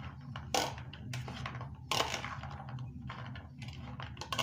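A spoon stirring chopped salad in a bowl, scraping and clinking against the bowl, with a few sharper clinks about half a second in, about two seconds in and near the end.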